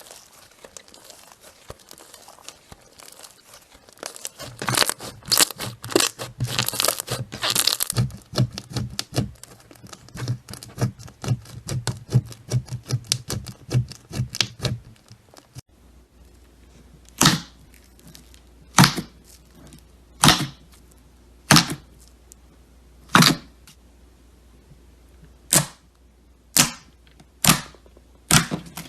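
Slime being squished and worked by hand, a dense run of crackling, sticky clicks. About halfway through this changes to single sharp pops, one every second and a half or so.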